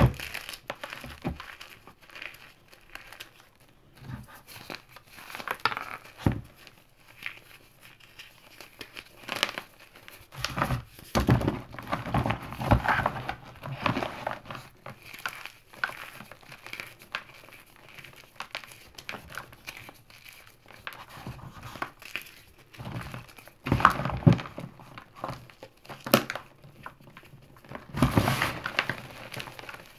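Hand-crumbled chunks of gym chalk and cornstarch crunching and breaking apart in irregular bursts, with soft powdery rustling between. The crunches are louder a little before halfway and again near the end.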